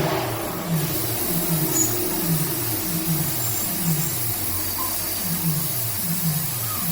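Hot-air rework gun blowing steadily, heating the TV board to loosen the soldered HDMI port. Under the hiss, a low falling tone repeats about twice a second.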